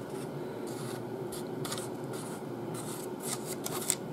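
Electric hot knife scraping along the edge of a styrofoam block, a string of light, irregular scratching strokes as the foam corner is rounded off.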